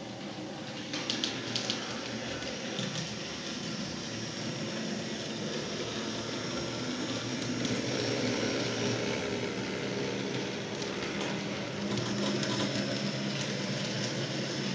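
H0-scale model trams running on the layout track: a steady mechanical running noise of small motors and wheels on rail, with a low hum and a few sharp clicks about a second in.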